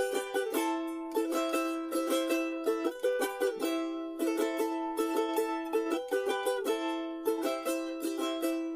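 Charango, the small Andean lute, playing a fast melody of quick plucked notes in a high register, in repeating phrases with no bass underneath.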